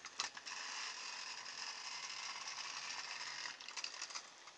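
Small electric motor from a nasal hair trimmer whirring steadily as it spins a propeller blade on a toy tractor. Sharp clicks about a quarter second in and a cluster of clicks and knocks near the end as the tractor is handled and set down.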